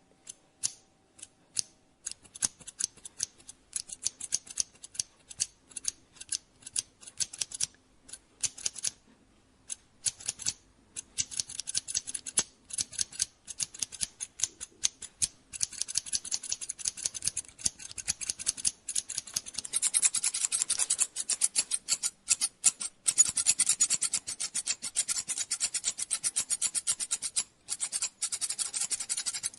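Scissors snipping through hair in quick short cuts, scattered at first and turning into a fast, busy run of snips from about halfway through.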